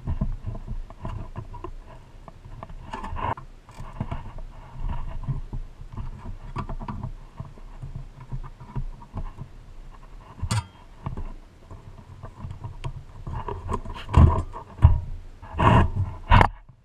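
Pressed-steel body parts of a vintage Tonka toy fire truck being handled and worked apart by gloved hands: a continual run of small scrapes, clicks and light metal knocks, with a few louder knocks near the end as a panel piece comes loose.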